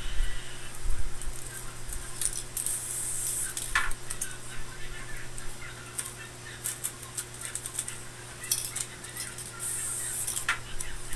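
Two short hisses from an aerosol spray can, about two and a half seconds in and again near the end. Between them are scattered crackles and clicks from a crinkled plastic sheet and a paper template being handled.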